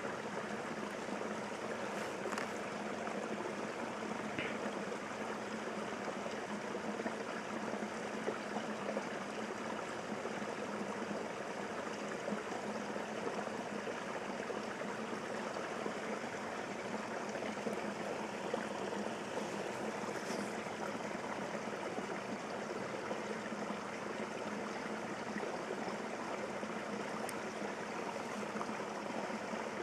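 Steady, even rush of running water, like a small stream.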